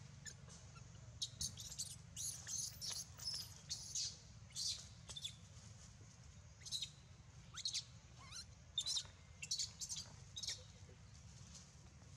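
Baby macaque giving many short, high-pitched squeaks and squeals in irregular runs, with a pause of a second or so in the middle.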